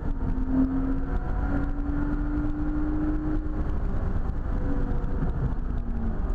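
Lotus Exige 350 Sport's supercharged 3.5-litre V6 heard from inside the cabin while lapping a circuit. Its note drops with a gear change right at the start, climbs slowly under acceleration, then falls near the end, over a constant rumble of road and wind noise.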